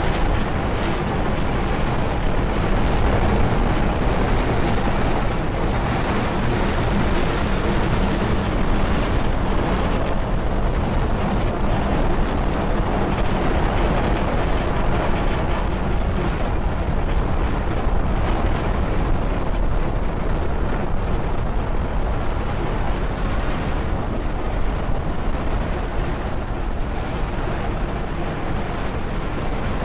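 Electronic sound collage built from processed field recordings: a dense, steady wash of noise with a low hum underneath. The hiss in the upper range thins out about halfway through.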